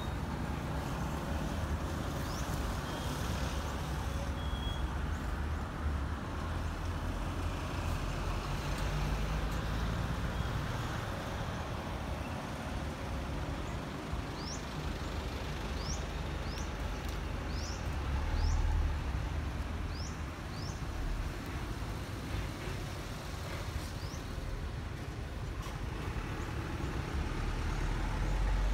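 Steady low rumble of road traffic. About halfway through comes a run of short, high, rising chirps, roughly one a second.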